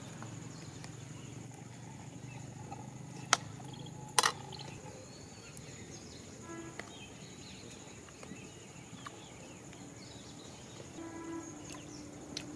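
A metal spoon knocking against an iron kadai: two sharp clinks about a second apart, around three and four seconds in, over a faint, steady outdoor background.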